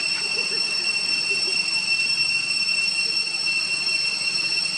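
Steady, high-pitched drone of insects calling, several shrill tones held unbroken throughout.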